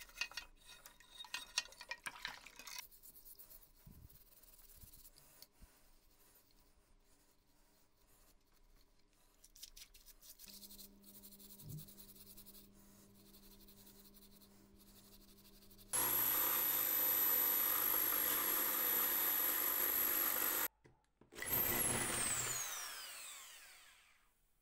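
Hands scrubbing the slicer's metal parts with a steel scouring pad in a tub of cleaning liquid, scratchy at first, then fainter rubbing and splashing. About two-thirds of the way in an electric drill starts running at a steady speed with a high whine, stops, runs again briefly and winds down with a falling whine.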